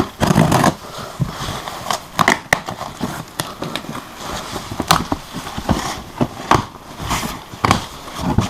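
Cardboard shipping box being opened by hand: cardboard and packing rustling and crackling, with irregular sharp clicks and knocks.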